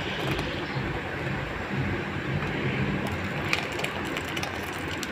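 A pan of milk and vermicelli simmering, with a ladle stirring it and pouring milk back into the pan; a few light clicks about three seconds in.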